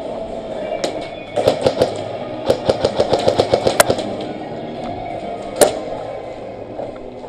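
Airsoft guns firing: a short burst about a second and a half in, then a rapid burst of about a dozen sharp shots, and a single shot later on.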